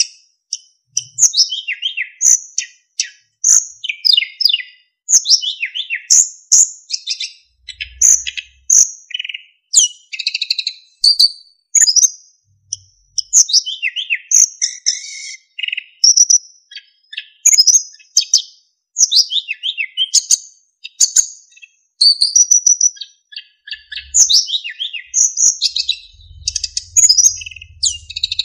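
Sikatan emas flycatcher singing a continuous, varied song of quick, clear phrases, many of them short falling whistles, with only brief pauses between them.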